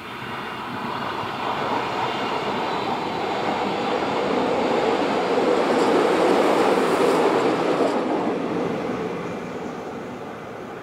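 Three-car CPH class rail motor set approaching and running past. Its sound builds up, is loudest about six to seven seconds in as the cars go by, then fades as the set moves away.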